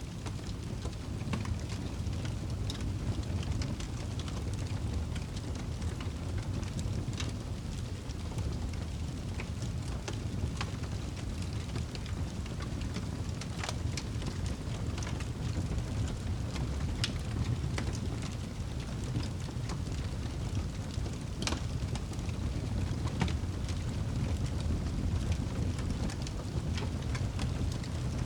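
Wood fire burning in a fireplace: a steady low rumble of flame with scattered crackles and sharp pops.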